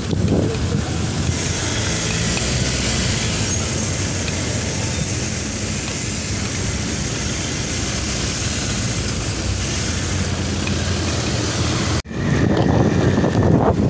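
Wind rushing over the microphone of a camera on a moving bicycle, with road noise: a steady rumbling hiss. About twelve seconds in it breaks off abruptly and comes back louder.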